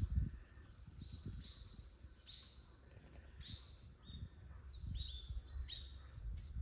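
A small songbird singing a quick series of short, high notes, each sliding downward, over a low rumble.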